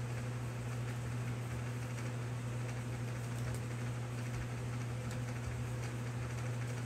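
Steady low room hum with faint scattered light ticks.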